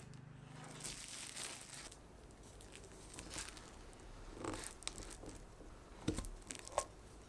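Plastic cling wrap crinkling as it is handled and peeled off rolled tart dough. Near the end, a canister is pressed down through the dough to cut a round, with two light knocks.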